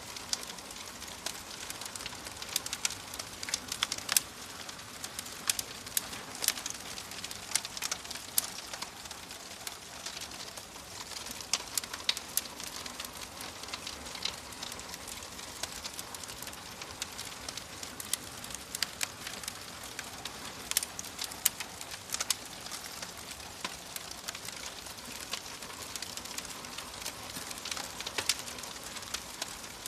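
Wood fire in a fireplace crackling: a steady soft hiss with frequent irregular sharp pops and snaps.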